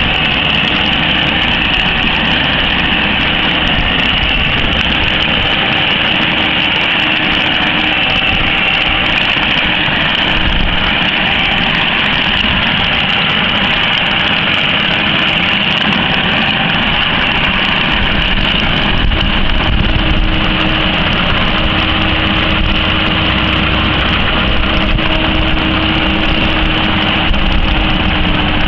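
Tractor engine running steadily under load while it drives a 3-metre power harrow working through tilled soil.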